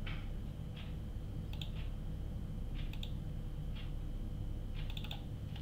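Scattered clicks of a computer mouse and keyboard, about a dozen at irregular intervals, some in quick pairs, over a steady low hum and a faint high whine.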